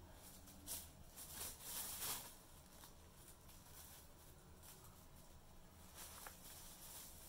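Thin plastic carrier bag rustling and crinkling in short bursts, loudest from about one to two seconds in, with a brief crackle again near the end.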